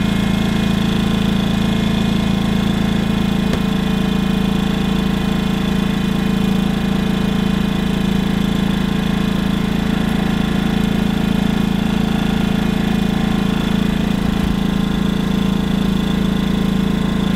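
WEN 2000-watt inverter generator's small single-cylinder four-stroke engine running steadily in eco mode under a light load. Its even hum holds one unchanging pitch and level throughout.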